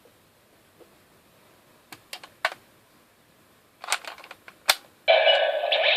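Sharp plastic clicks from handling the Gabutyra de Carnival toy and loading a Zyudenchi battery piece. About five seconds in, the toy's small speaker starts its loud, tinny electronic sound effect.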